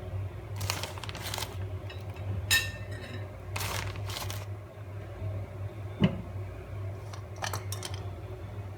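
Short rustling and scraping handling noises as toppings are added to an uncooked pizza, with one sharp knock about six seconds in, over a steady low hum.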